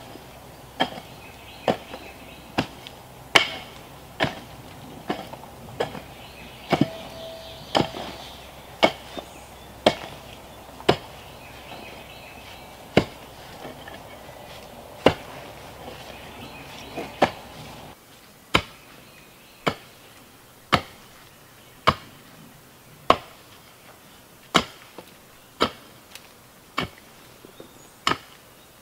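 A mattock chopping into the dirt, one sharp strike about every second, kept up steadily.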